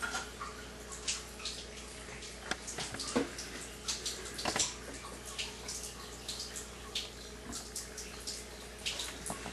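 Water trickling and splashing into a sink, with scattered small clicks and drips over a faint steady hum.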